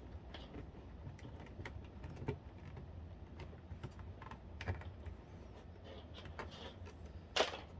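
Scattered small clicks and taps of plastic and metal console parts being handled and fitted by hand, with one louder sharp knock near the end.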